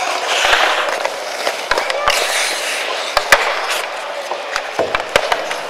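Ice skates scraping and carving on the rink, with a series of sharp clacks of hockey sticks and puck, the loudest a little over three seconds in and several more near the end.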